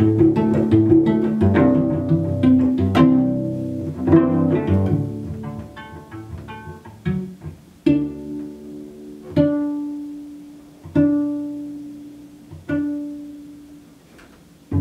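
Cello played pizzicato. For about six seconds it plays a quick run of plucked notes, then four single plucked notes about a second and a half apart, each left to ring and die away.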